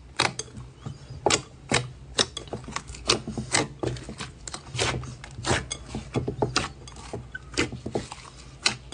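Glossy slime being poked and pressed by fingers in a glass bowl, giving irregular sharp clicks and pops, several a second, over a low steady hum.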